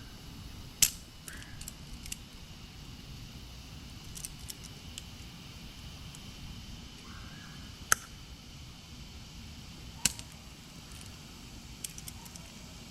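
Sharp metallic clicks and clinks of a hand tool squeezing a terminal lug onto a heavy power cable. There are three loud clicks, about a second in, near eight seconds and near ten seconds, with fainter ticks between.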